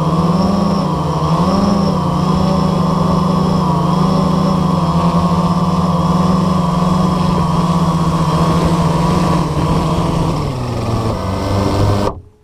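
Blade 350 QX quadcopter's electric motors and propellers humming steadily as it flies low and sets down. The pitch wavers briefly in the first two seconds, then falls as the motors wind down near the end, and the hum stops abruptly.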